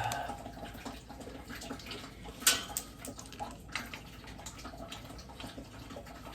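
Faint trickle of water as a boiler is being drained, with scattered small clicks and knocks; the sharpest click comes about two and a half seconds in.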